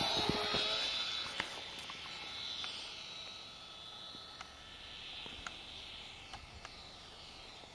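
Small RC foam Cessna 182 slow flyer's electric motor and propeller whining as it passes low and close, dropping in pitch as it goes by, then fading as it flies away. Scattered faint ticks sound throughout.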